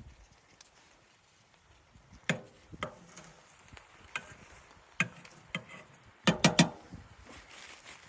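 Irregular sharp knocks and clunks: a few single ones, then a quick run of three louder ones near the end.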